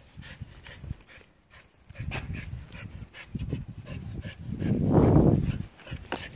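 A small dog on a lead making low, breathy huffing noises as it fights the head halter it wants off, loudest about five seconds in. Light ticks of claws or steps on the pavement come through as well.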